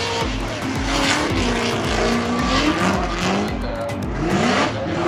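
Formula Drift cars sliding sideways through a corner in tandem, their engines revving up and down over a steady hiss of spinning, smoking tyres.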